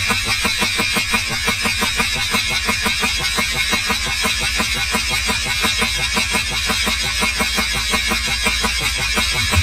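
Krytac Kriss Vector airsoft electric gun firing on full auto: a long, unbroken string of rapid, evenly spaced shots with the gearbox cycling.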